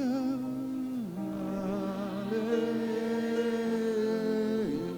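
A voice singing two long held notes over soft, steady instrumental background music. The first is short and wavers; the second is held for about three and a half seconds and slides down near the end.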